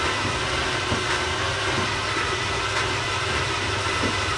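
Electric dough mixer (a mixmaster) running steadily, a constant motor rumble and whir as it blends flour into potato for lefse dough.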